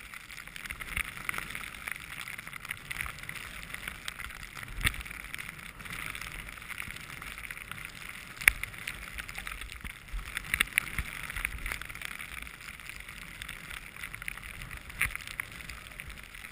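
Skis hissing steadily through snow on a downhill run, with wind rumbling on the microphone. A few sharp knocks cut through it, the loudest about eight and a half seconds in.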